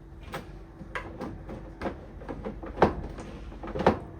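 Irregular knocks and clunks of hands handling the cover and case of a Teletype Model 33, with two louder clunks in the second half.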